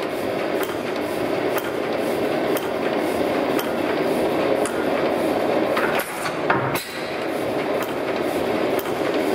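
Old Tangye stationary petroleum engine running steadily. Its valve gear and side shaft make a rhythmic mechanical clatter, with a sharper click about once a second and a brief dip about six seconds in.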